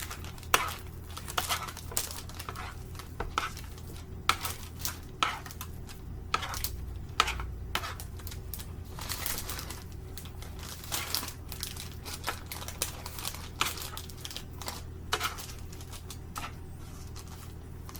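Irregular clicks, taps and crinkles of kitchen handling: a spoon knocking and scraping a pan while parchment paper is handled, over a steady low hum.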